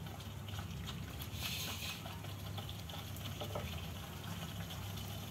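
Thick masala gravy bubbling and spluttering in a kadhai on low heat, with scattered small pops over a steady low hum. The oil has separated and the masala is frying in it, and the spluttering is a sign that it is well fried.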